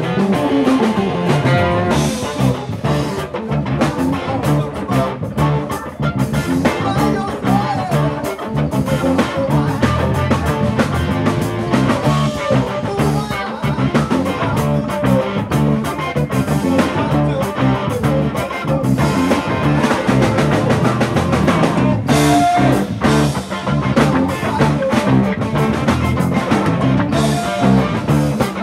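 Live funk band playing a steady groove, with electric guitar, congas and drum kit.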